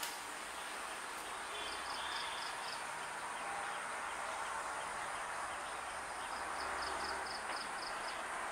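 Outdoor ambience: a steady high insect drone over a steady hiss, with two runs of short high chirps at about five a second, one about two seconds in and a longer one about six seconds in.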